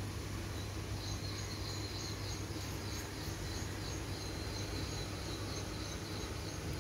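Insects chirping in a quick run of high pulses that start about a second in, over a steady low hum.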